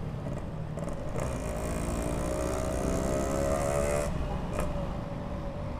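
Yamaha RX-King two-stroke motorcycle engine running on the move, its pitch slowly rising as it accelerates from about a second in, then easing off about four seconds in, over steady road and wind rumble.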